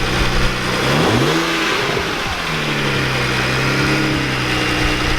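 BMW 335i twin-turbo straight-six idling, blipped once about a second in so the revs rise and drop back, then idling steadily. The engine runs again after its ECU was repaired for a misfire fault, with no fault codes present.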